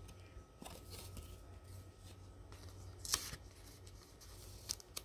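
Plastic nine-pocket binder sleeve rustling as a baseball card is slid into a pocket, in a few short crinkles, the loudest about three seconds in.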